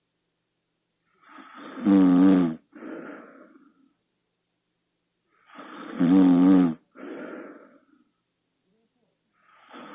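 A sleeping person snoring: two loud, pitched snores on the in-breath, about four seconds apart, each followed by a softer, breathy out-breath. A third snore begins near the end.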